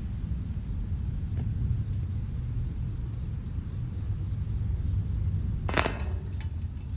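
Steady, gusting low rumble of wind buffeting the microphone, with a short sharp rustling clatter near the end.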